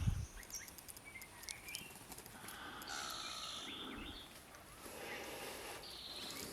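Faint, scattered chirps and short calls of small birds, with soft noisy breathing close to the microphone swelling around the middle.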